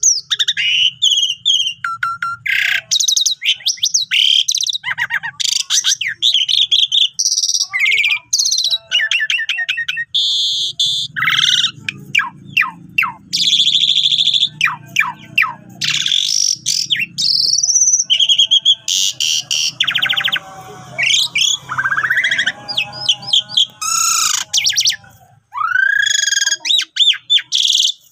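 Caged pied starling (jalak suren) in full song: a fast, varied string of whistles, chirps and rising and falling slurred notes with barely a pause.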